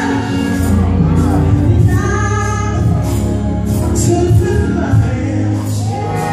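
Live gospel music in a church: singing over a band with a strong bass line and regular percussion hits in the high end.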